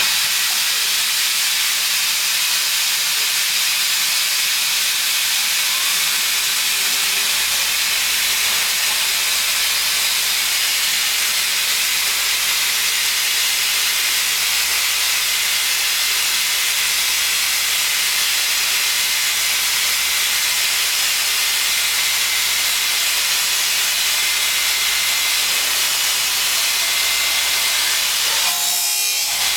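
STORM 3555 SA automatic dry abrasive cut-off wheel grinding through an aerospace foundry casting: a loud, steady hiss that starts abruptly. A low hum joins about seven seconds in, and the sound changes just before the end as the cut finishes.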